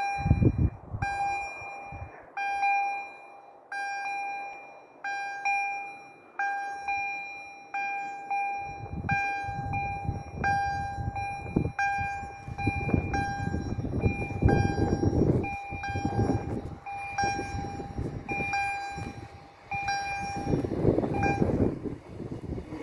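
Level-crossing warning bell striking about once every 1.3 seconds, each strike a ringing tone that fades away. From about eight seconds in, the rumble of an approaching regional train grows beneath the bell and is loudest near the end.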